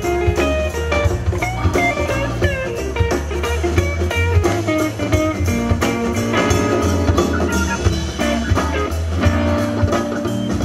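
A live band playing an instrumental passage with no singing: electric guitar lead over bass, drum kit and congas.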